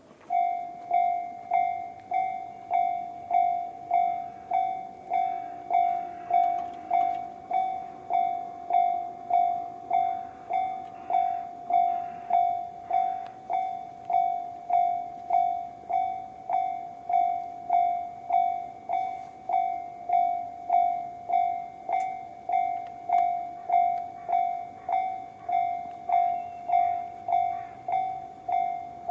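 Japanese railway level-crossing alarm of the Tobu 'sound C' type in its slow-tempo version: an electronic bell-like ding repeating about one and a half times a second. It starts abruptly right at the outset as the crossing begins to warn.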